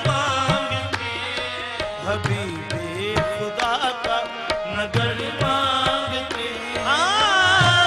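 Naat sung in qawwali style: male voices singing over sustained harmonium chords, with tabla strokes throughout. About seven seconds in, a lead voice rises and swells.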